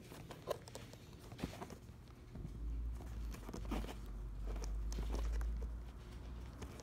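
Faint handling noise from a packaged plush toy being moved about: scattered light taps and clicks, with a low rumble for a few seconds in the middle.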